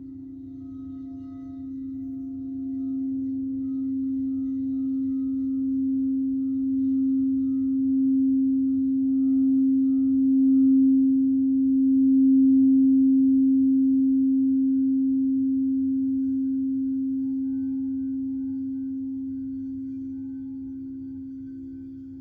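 A singing bowl played around its rim, its steady low hum swelling louder in slow, even pulses. About halfway through the rubbing stops and the tone rings on, fading slowly.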